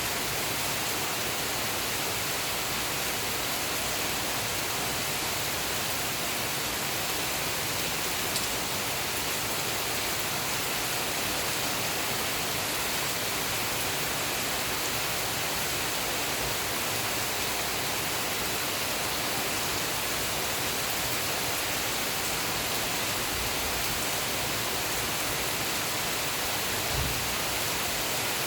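Steady heavy rainfall making an even hiss, with a faint tick about eight seconds in and a brief low thud near the end.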